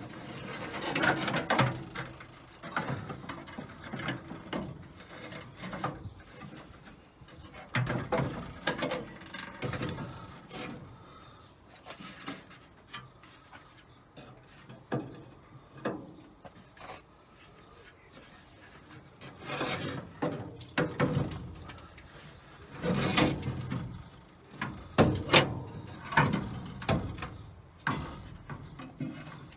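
Irregular knocks, scrapes and clunks of an old car radiator being shifted about and lifted up out of the engine bay.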